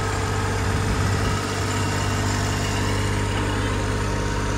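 Tractor engine running steadily as it tows a passenger wagon, a continuous low hum with no change in speed.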